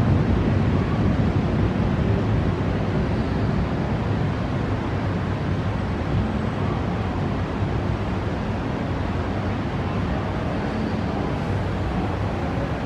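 Storm wind on the camera microphone: a steady low rumble with a hiss above it, easing slightly as it goes, with no thunder claps.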